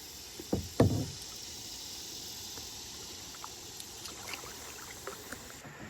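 Creek water running in a steady hiss, with a couple of sharp knocks a little under a second in.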